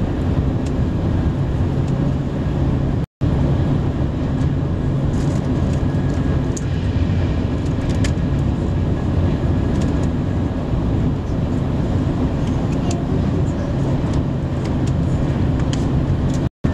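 Steady rumble inside the passenger car of a TGV high-speed train running at speed. The sound cuts out for an instant about three seconds in and again near the end.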